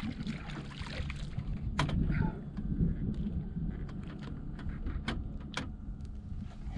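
A boat running while it trolls on the water, a steady low hum and rumble, with scattered sharp clicks and knocks.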